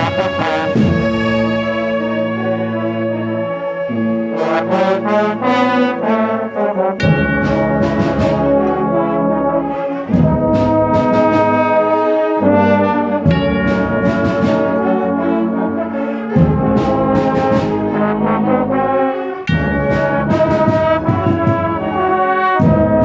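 A large brass band of over a hundred players playing. Trombones and trumpets hold sustained chords that change every few seconds over steady drum beats.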